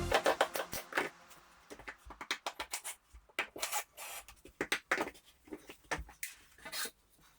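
Scattered light clicks and knocks at an irregular pace, with no steady sound beneath them.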